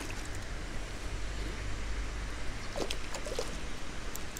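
Steady low rumble and hiss of outdoor noise, with a few faint, brief sounds about three seconds in.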